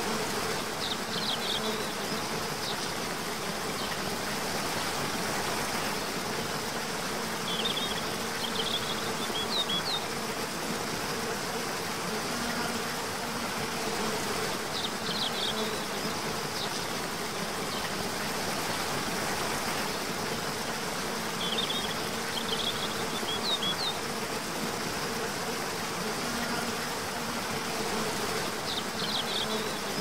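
Waterfall cascading into a pool: a steady rush of falling water. Short high chirps come in small clusters every six or seven seconds, over a faint hum that comes and goes.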